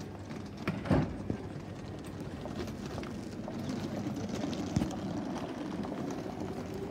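Passengers' footsteps along a station platform, irregular steps over steady background noise, with one sharp knock about a second in.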